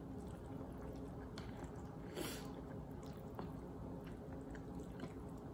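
Quiet chewing of instant ramen noodles, with a few faint clicks of wooden chopsticks against the cup and one short breathy sound about two seconds in.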